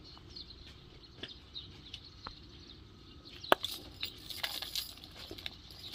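Small birds chirping in the background, with scattered sharp metal clinks, the loudest about three and a half seconds in and a cluster soon after, from a dog's tie-out chain as the dog shifts about.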